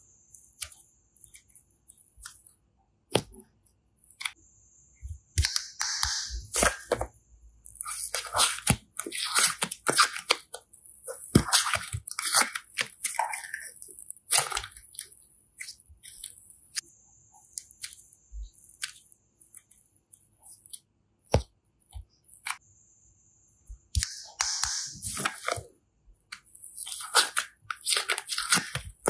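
Slime and clay being worked by hand for ASMR: irregular crackling, sticky squishing and sharp clicks, in bursts with short pauses between.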